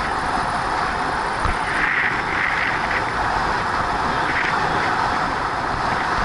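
Steady rush of wind over a Sony HDR-AS30V action camera's microphone on a bicycle moving at about 41 km/h, mixed with the hum of the tyres on the asphalt road.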